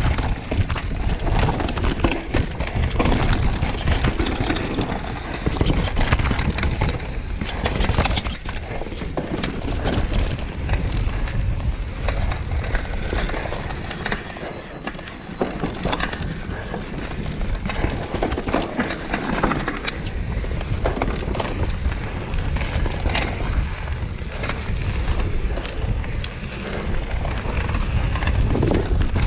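Enduro mountain bike descending a dirt trail at speed: tyres rolling over dirt and stones, with frequent rattles and knocks from the bike and a heavy low rumble throughout.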